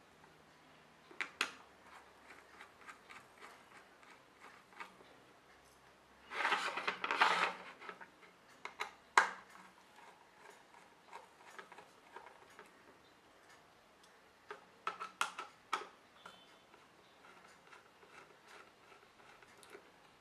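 Small metallic clicks and scrapes of a screwdriver turning out the steel case screws of a Hitachi laptop hard drive. A louder scraping rattle comes about six to seven and a half seconds in, a sharp click near nine seconds, and a run of quick clicks around fifteen seconds.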